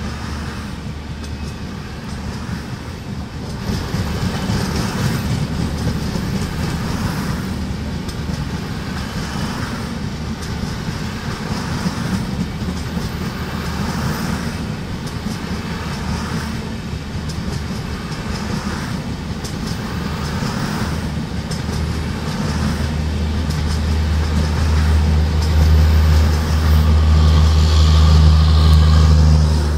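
LHB coaches of a Rajdhani Express rolling past at speed, with the wheels clattering over rail joints in a steady repeating rhythm. Toward the end a steady low diesel drone swells and becomes the loudest sound as the train's rear power car goes by.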